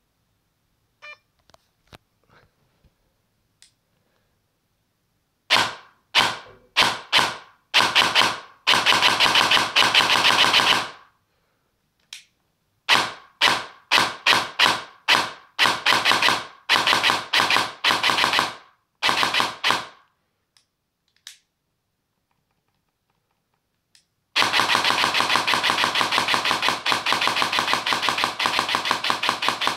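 Airsoft electric M4A1 replica with an SHS motor and 13:1 high-speed gears, its gearbox cycling fast: a few faint clicks, then several short bursts with pauses from about five seconds in, a single shot near twenty-one seconds, and a long unbroken full-auto burst from about twenty-four seconds on.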